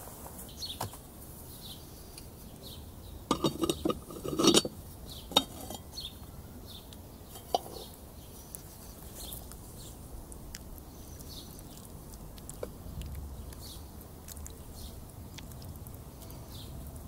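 Metal clanking of the black cooking pot's lid being lifted off and handled: a cluster of clanks about three to five seconds in, then two single clinks. Birds chirp faintly throughout.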